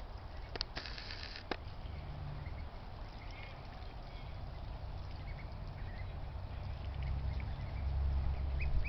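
Young Pekin and Welsh Harlequin ducklings, about four weeks old, giving faint scattered peeps over a steady low rumble, with a few sharp clicks about a second in.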